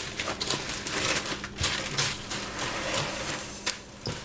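A spoon stirring crisp rice cereal into melted chocolate and marshmallow in a stainless steel bowl: quick, irregular scraping and rustling strokes. A faint steady low hum sits underneath.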